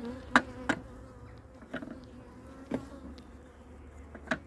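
Honeybees buzzing steadily around an open hive, a constant hum, with a few sharp knocks scattered through, the loudest about half a second in.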